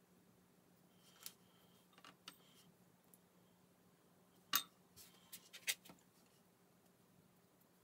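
Small hand tools clicking and tapping as they are handled and set down on a work board: a few scattered light clicks, the loudest a little past halfway, then a quick cluster of taps. A faint steady hum lies under it.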